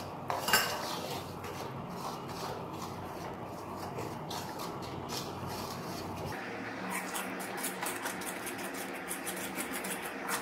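A steel spatula stirring and scraping thick Mysore pak batter of besan, sugar and ghee around a metal kadai, in a run of soft repeated scrapes, at the stage where the batter is absorbing freshly added ghee. Under it runs a low steady hum that cuts off about six seconds in.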